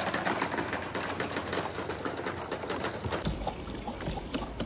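Billiard balls rolling and clattering down a perforated board ramp, knocking against each other and the wooden rails in a rapid, uneven stream of clicks, and splashing one by one into a plastic tub of water.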